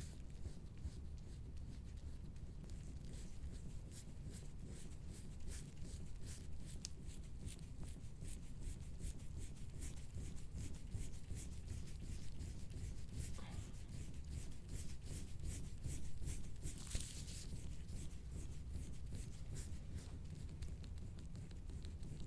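Instrument-assisted soft-tissue scraping: a scraping tool drawn over the skin of the back in many quick, short strokes, with a low steady hum underneath.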